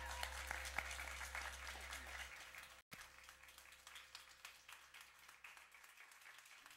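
Audience applauding at the end of a song, a dense patter of clapping. It breaks off for an instant about three seconds in and carries on more faintly.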